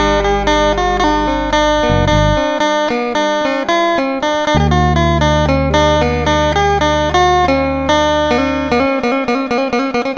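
Background music: a plucked guitar picking a quick, even run of notes over long held bass notes that drop out for a while about two seconds in and again near the end.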